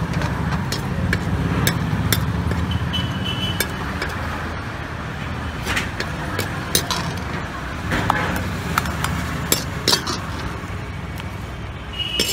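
Steel ladle clinking and scraping against an aluminium kadhai as instant noodles are stirred and tossed, in irregular sharp knocks, over a steady low rumble.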